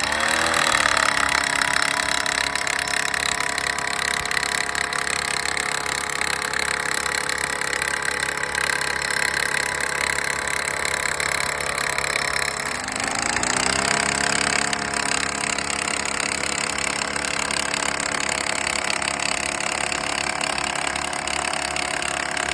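Small Honda engine of a gas-powered post driver running hard while driving a fence post, revving up at the start and again about 13 seconds in, then holding a steady high pitch.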